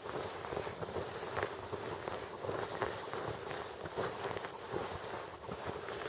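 Footsteps in deep, fresh snow: an uneven run of soft steps over a steady background hiss.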